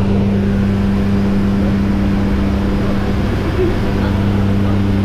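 Jump plane's engine and propeller droning in flight, heard inside the cabin: a loud, steady hum whose pitch holds constant.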